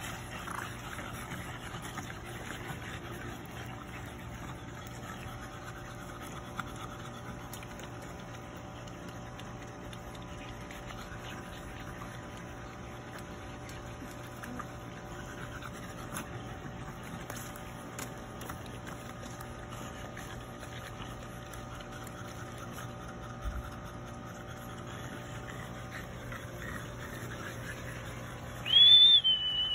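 French bulldogs panting over a steady low hum. Near the end there is a short, loud, high-pitched cry that rises and then falls.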